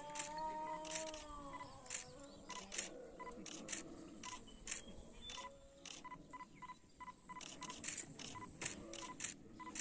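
Camera shutters clicking, some in quick bursts, with short beeps at one pitch repeating irregularly. An animal's pitched call trails off about a second in.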